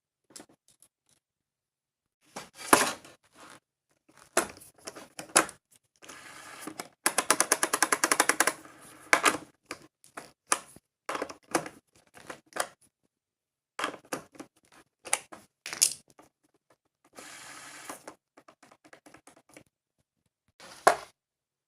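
Skateboard parts being handled and worked on by hand: scattered clicks and taps, a fast run of ratchet-like clicking in the middle, and a brief rustle a little later.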